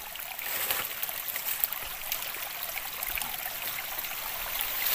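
Steady rush of running water from a stream, with scattered faint ticks and crackles over it.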